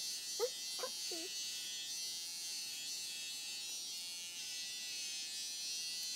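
Corded electric hair clippers buzzing steadily as they cut through short hair.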